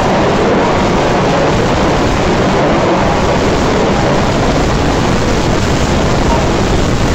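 Radio-controlled 4WD off-road cars racing on a dirt track in a large indoor hall: a steady, dense rush of noise with no breaks.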